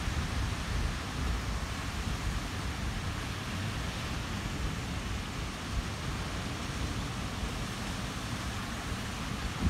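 Surf breaking on a reef and washing over the shore, a steady rushing hiss, with wind buffeting the microphone as a fluttering low rumble.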